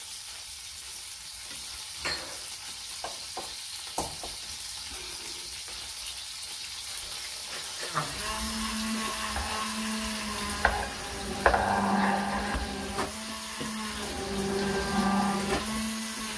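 Food sizzling as it fries in olive oil in a pan, with a few clicks. About halfway through, an electric stick blender starts puréeing the pumpkin soup. Its motor hums steadily, breaks off and restarts a few times, and knocks sharply against the vessel around the middle.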